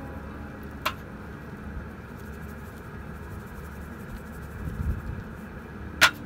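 Sharp knocks of things being set down on an aluminium camp table: a light one about a second in and a louder one near the end. A low rumble comes and goes between them over a steady low background noise.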